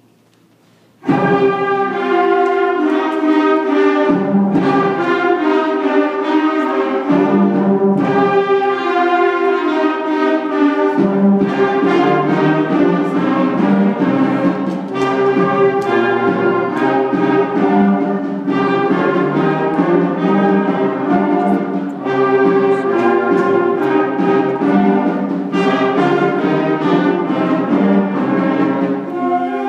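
Sixth-grade student concert band of woodwinds and brass, including flutes and French horn, starts playing together on the conductor's cue about a second in and keeps playing a piece of sustained chords and moving lines.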